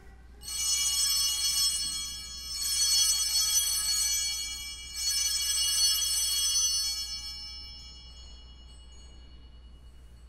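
Altar bells rung three times, each ring a cluster of high bell tones about two seconds long, the last dying away slowly: the signal at the elevation of the consecrated host.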